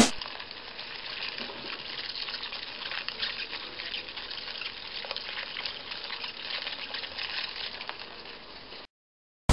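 A steady low hiss of room tone with scattered faint clicks and rustles, like the light handling of a plastic cup. It cuts off to silence shortly before the end.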